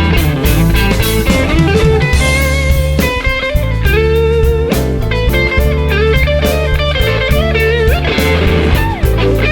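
Blues band playing an instrumental break: an electric guitar lead with bent, wavering notes over bass and a steady drum beat.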